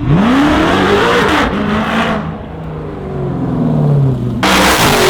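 Jeep Grand Cherokee Trackhawk's supercharged 6.2-litre Hemi V8 revving hard, its pitch climbing, easing off in the middle, then surging loud again near the end.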